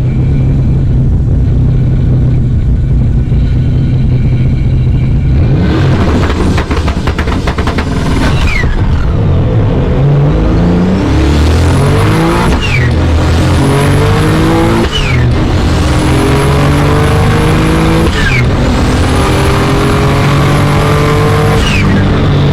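Turbocharged Ecotec V6 running at full throttle. It holds steady revs for several seconds, then pulls away and climbs through about four gear changes, each a rise in pitch cut off by a sudden drop. A high turbo whistle rises with each gear.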